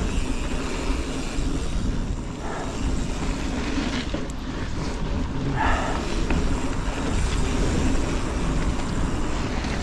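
Canyon Spectral mountain bike riding along a dirt forest singletrack: steady tyre rumble on the trail and rattle of the bike, with wind buffeting the action camera's microphone.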